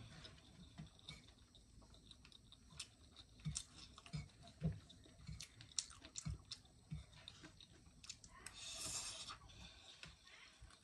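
Close-miked chewing of vegetable chow mein noodles, soft and wet, with light clicks of a metal fork picking up food from a banana leaf. A short rushing sound comes about nine seconds in.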